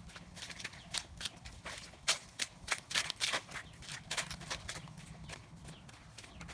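Footsteps walking, heard as a run of irregular sharp clicks and knocks, thickest about two to three and a half seconds in, over a faint low hum.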